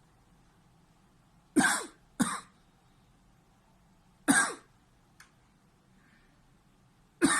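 A man coughing in short, sharp single coughs, four in all: two close together about one and a half seconds in, one a little after four seconds, and one at the very end. They are reflex coughs, set off by pressure on a schwannoma of the right vagus nerve in his neck.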